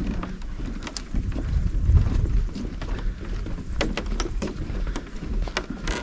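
Wind buffeting the microphone as a low rumble, with a few scattered sharp knocks from footsteps on the wooden boardwalk planks.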